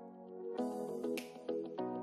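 Instrumental background music of sustained notes, with a swelling high hiss that ends in a sharp hit just past the middle.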